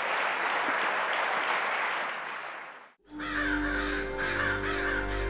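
Audience applauding, fading out at about three seconds in. Then music starts abruptly with crows cawing over it.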